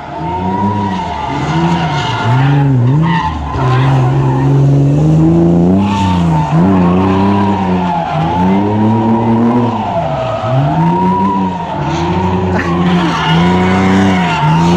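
Drift car's engine revving up and down again and again, about once a second, held high for a couple of seconds midway, with the tyres squealing throughout as the car slides.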